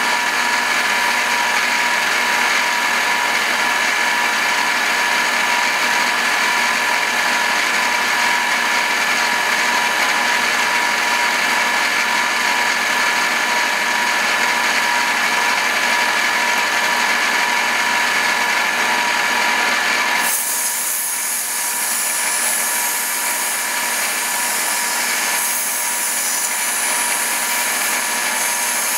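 Bridgeport vertical milling machine running, its end mill cutting a fuller groove along a steel Bowie knife blade as the table feeds: a steady whine with a couple of held tones. About two-thirds of the way through the sound changes, with a higher hiss coming in.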